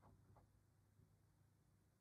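Near silence: room tone, with two faint short clicks near the start.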